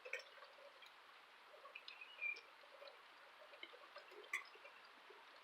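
Faint, scattered bird chirps over a quiet outdoor background, with a brief clear chirp about two seconds in and a sharp tick a little after four seconds.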